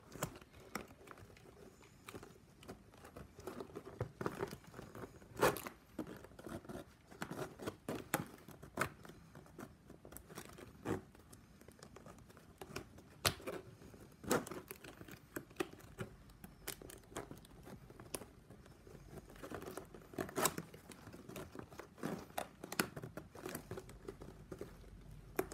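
Plastic packaging strapping band strips being handled and tucked through a woven bag, crinkling and scraping with irregular sharp clicks.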